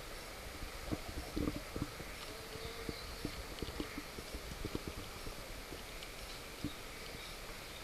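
Soft, irregular low bumps and knocks from a handheld camera being moved about, over a faint steady outdoor background.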